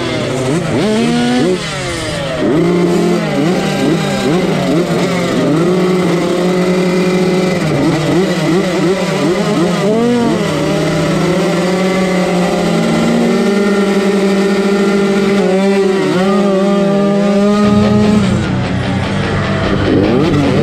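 Several 85cc motocross dirt bike engines revving at the starting gate, their pitches rising and falling against each other; near the end the bikes are under way on the track.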